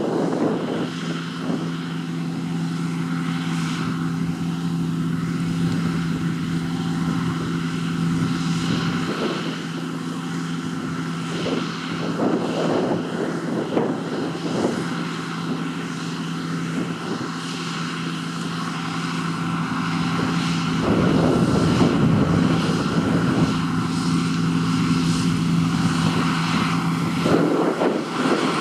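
John Deere T560 combine harvester running, a steady engine and machinery drone with a constant hum, louder for several seconds about two-thirds of the way through.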